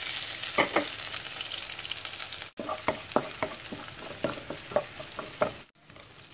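Chopped shallots, garlic and chillies sizzling in hot oil in a non-stick wok. In the second half a spatula stirs them, knocking against the pan in a run of about eight sharp clicks. The sizzle is quieter near the end.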